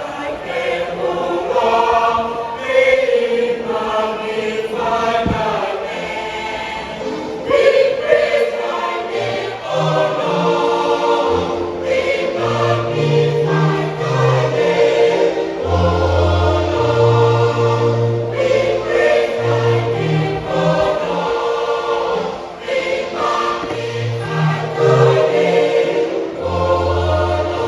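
Junior choir singing a gospel song in several voices, with a low bass line entering under the singing about nine seconds in.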